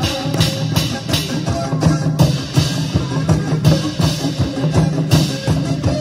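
Upbeat dance music with a fast, steady drum beat.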